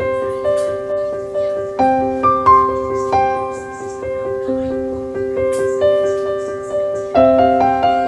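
Soft background piano music: slow notes struck one or a few at a time and left to ring and fade.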